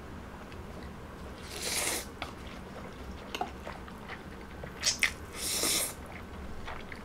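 Jjajangmyeon noodles being slurped twice, each a short hissing suck, with a few light clicks in between, over the faint steady hum of an air conditioner.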